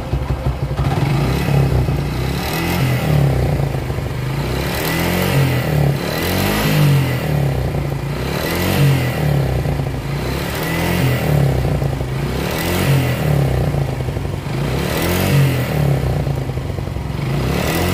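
Suzuki Gixxer SF single-cylinder engine running and being revved up and down about every two seconds, with a clattering noise. It is a really bad sound; when the engine was opened, the mechanic found the connecting rod in very bad condition.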